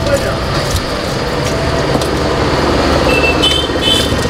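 Busy street traffic with vehicle engines running steadily. Near the end come a few short high tones.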